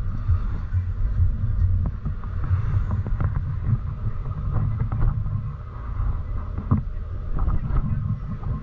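Open-sided tour bus on the move, heard from inside among the passengers: a steady low engine and road rumble with wind buffeting the microphone and scattered rattles and knocks.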